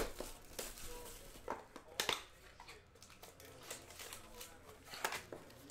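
Trading card pack wrappers crinkling and cards being handled, with sharp crackles at the start, about two seconds in and about five seconds in.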